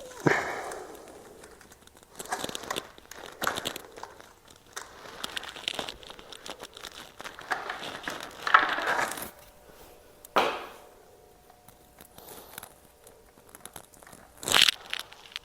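Hands working on a motorcycle: irregular rustling, scraping and clicking of tools and parts being handled. Two louder sharp knocks stand out, one about ten seconds in and one near the end.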